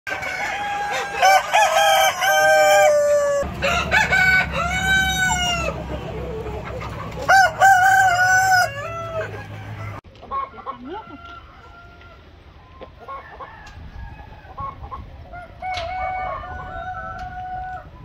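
Roosters crowing again and again, loud and close, with hens clucking. About ten seconds in the sound drops suddenly to quieter clucking and fainter calls.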